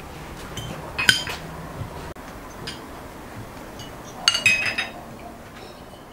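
Forks and spoons clinking against china plates and glass tea glasses: a single sharp clink about a second in, then a quick run of ringing clinks about four seconds in.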